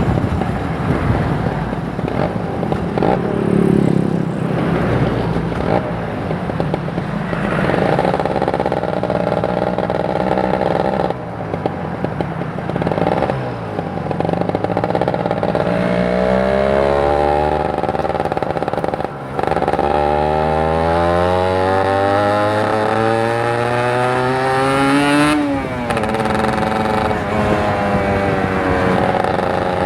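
Kawasaki Ninja 150 RR's single-cylinder two-stroke engine under way, rising in pitch as it accelerates and breaking off briefly several times at the gear changes, with wind and road noise in the first few seconds.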